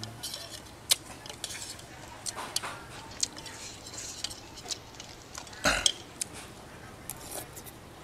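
A metal spoon and chopsticks clicking against a ceramic bowl as noodles in soup are stirred and lifted, with the mouth sounds of someone eating. One louder short sound comes a little past the middle.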